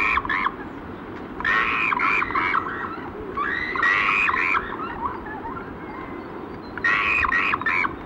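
Animal calls over a steady outdoor hiss: four groups of quick, pulsed calls, each lasting about a second, come at the start, near 2 s, near 4 s and near the end.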